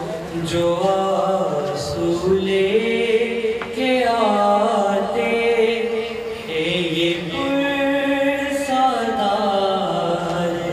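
A man's solo voice chanting a noha, a mournful Urdu lament, in long held notes that waver and slide in pitch.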